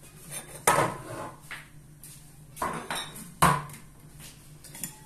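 A cooking pot and a plate clanking and clinking as they are picked up off the counter. There are a few sharp knocks, the loudest about a second in and about three and a half seconds in.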